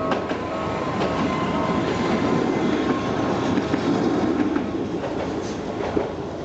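Tokyu Setagaya Line train passing over a level crossing, its wheels rumbling and clacking over the rail joints. The crossing alarm bell rings in the first second or two, then is lost under the train.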